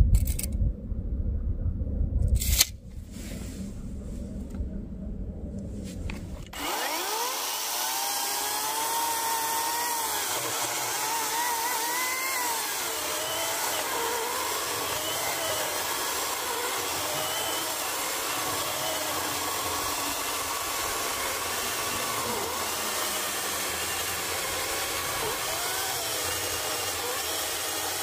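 A low rumble and a couple of knocks, then about six seconds in a Parkside PKSA 40-Li A1 40V cordless electric chainsaw starts running and cuts steadily into an oak log. Its motor whine wavers up and down in pitch as the load changes.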